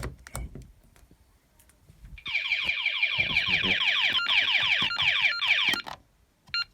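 Fire alarm sounder going off with a fast repeating downward-sweeping tone, about five sweeps a second. It starts about two seconds in and cuts off suddenly near six seconds, then gives one short beep.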